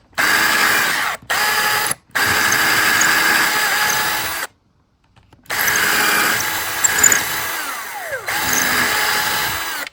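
Electric drill running in several bursts, starting and stopping, while small holes are drilled at pencil marks. The motor runs steadily in each burst, with a longer stop around the middle, and slows with a falling whine near the end.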